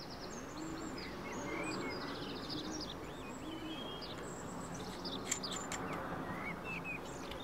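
Small birds chirping and singing in the background over a steady outdoor noise haze, with one short sharp click about five seconds in.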